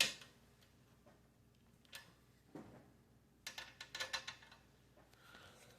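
Faint clicks and small metallic ticks of tight screws on a PC case's side panel being worked at by hand, a couple of single clicks and then a short flurry of them about halfway through.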